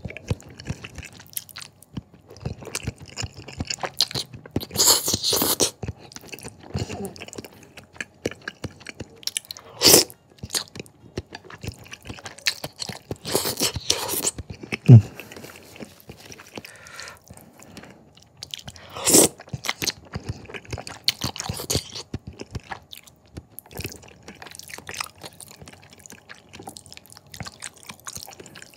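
A person eating thick jajangmyeon noodles in black bean sauce: wet chewing and lip smacks throughout, with several loud slurps of noodles every few seconds. About halfway through there is one sharp low thump.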